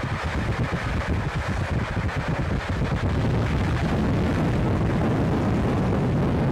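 Rushing wind buffeting the camcorder microphone at an open window of a moving train, over the train's running rumble. The buffeting becomes a steadier rush about three seconds in.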